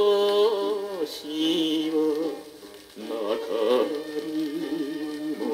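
Late-1950s Japanese popular song (kayōkyoku) playing from a vinyl record on a turntable: a melody line with vibrato holds sustained notes over the accompaniment, easing off briefly just before three seconds in and then returning.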